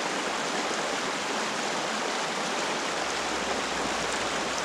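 Shallow rocky brook running over stones and through riffles: a steady rush of water.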